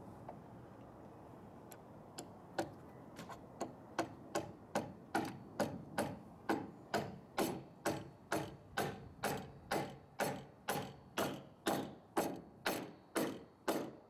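Hammer driving a nail into a wooden roof rafter. A few light taps set the nail, then from about four seconds in come steady, even blows at about two and a half a second.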